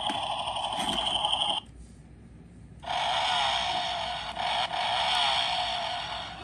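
Electronic engine sound effect from a toy motorcycle's small speaker, a buzzy revving drone. It cuts out suddenly about one and a half seconds in and starts again about a second later, with the revs wavering up and down.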